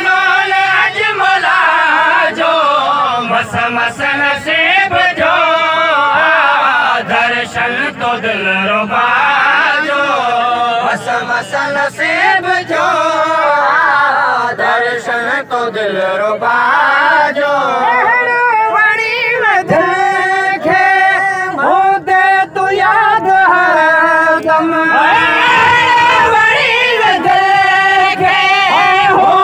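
Men singing a Sindhi song together into microphones. The long, drawn-out lines waver and bend in pitch, and the phrases break up into shorter ones in the middle.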